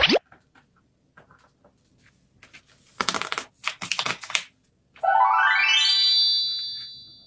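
A quick rising swoosh, a few faint paper taps, then paper crinkling for about a second and a half. About five seconds in, a rising run of bright chime-like notes plays, a magic-sparkle sound effect that rings and fades away.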